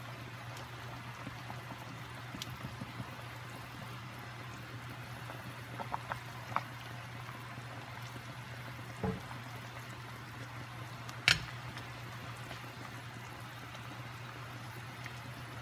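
Sinigang broth simmering in a pot on the stove, a steady bubbling, with a few light knocks, the loudest about eleven seconds in.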